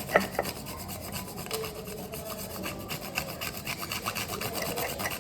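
Chocolate being grated by hand over a hot drink: rapid, steady rasping strokes of the chocolate against a grater, with one sharp knock just after the start. The grating stops right at the end.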